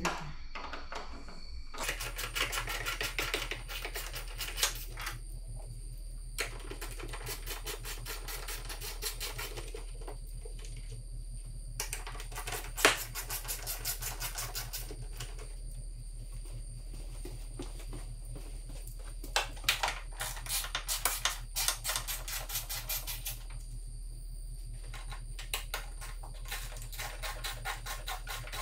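Hand ratchet wrench clicking in quick runs of a few seconds each, with short pauses between, as 7 mm fasteners on the car's cowl are turned. One sharper click stands out midway.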